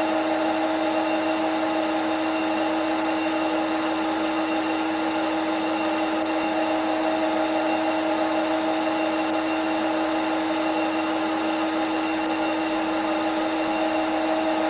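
Simulated CNC machine running a cut: a steady spindle whine with a constant hiss, holding one pitch throughout.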